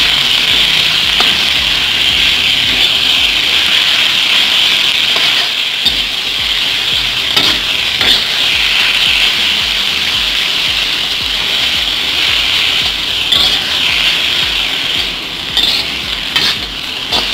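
Boiled pumpkin shoots sizzling in hot oil in a wok, a steady hiss, while a metal spatula tosses them with occasional scrapes and clinks against the wok.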